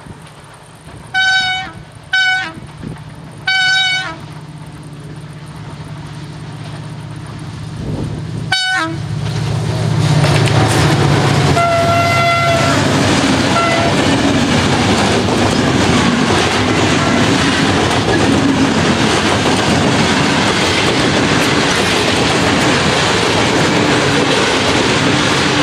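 Passenger train: the locomotive horn gives three short blasts while a low hum builds as the train approaches. From about ten seconds in, the train passes close by, its wheels on the rails making a loud steady rumble with rapid clicking over the joints.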